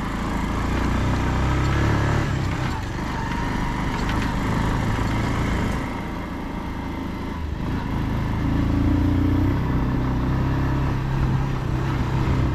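Motorcycle engine running while riding, with wind noise on the microphone. The engine eases off about six seconds in and picks back up a second or two later.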